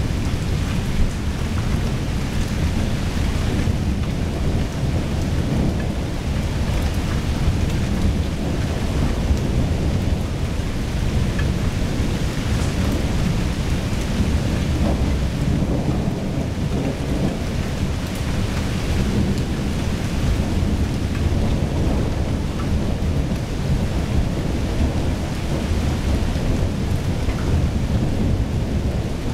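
Thunderstorm: steady rain with a continuous low rumble of thunder, no single sharp clap standing out.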